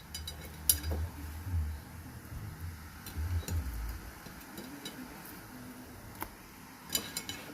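A few light clicks and taps of kitchen cookware and utensils being handled over a low rumble, with a sharper knock about a second in and another pair near the end.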